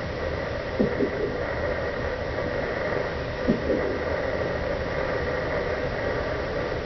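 Fetal doppler monitor hissing steadily through its speaker, with two short double thumps about three seconds apart: the unborn baby hiccupping.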